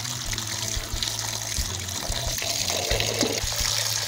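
Tap water running in a steady stream and splashing over cupped hands and boiled seeds in a bamboo basket as they are rubbed clean.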